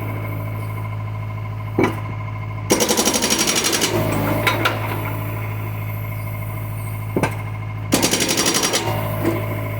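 John Deere excavator's diesel engine running steadily, with two bursts of rapid, even pounding of about ten strikes a second, each lasting about a second, the first about three seconds in and the second near the end, plus a couple of single knocks.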